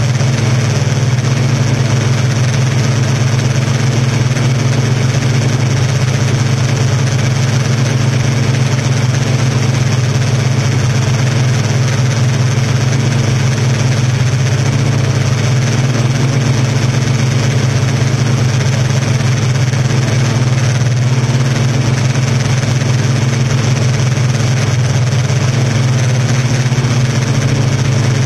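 Yuneec Typhoon Q500 quadcopter's motors and propellers humming steadily in hover and slow flight, a loud, unchanging low drone picked up by the drone's own camera.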